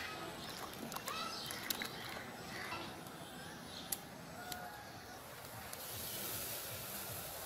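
Faint background with a few short bird chirps and scattered clicks, then about six seconds in a soft steady hiss begins as granulated sugar pours into a large pot of milk.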